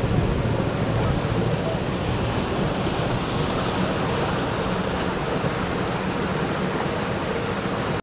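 A steady, even rushing noise, unbroken and with no distinct events.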